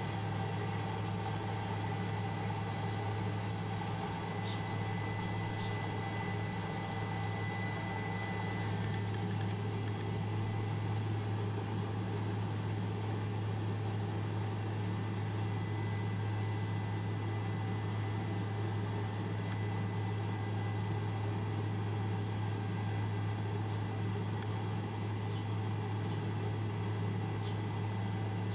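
Helicopter cabin noise in level flight: a steady low drone from the engine and rotors with an even hiss over it. A thin high whine runs through it, clearer in the first third.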